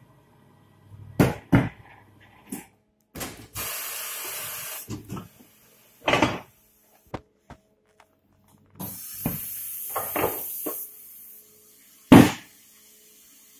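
Tyre changer at work on a steel wheel with a studded winter tyre: several heavy thuds as the wheel and tyre are handled on the machine, and two spells of compressed-air hiss, the later one as the air line is at the valve.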